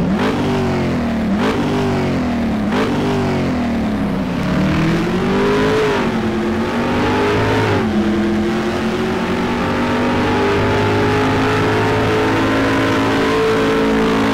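Race car engine accelerating hard through the gears: the pitch climbs and drops back at each upshift, about five times, then holds a steady high note at speed.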